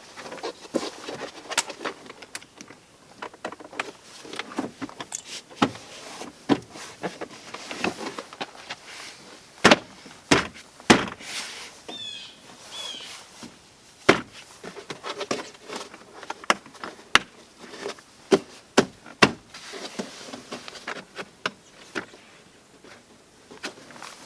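Irregular clicks, taps and knocks of hand tools and car door parts being handled during reassembly, the two loudest knocks about ten and eleven seconds in. A couple of short squeaks come around twelve seconds.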